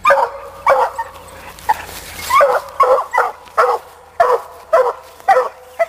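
Black and tan coonhound barking over and over in short, loud barks, about two a second.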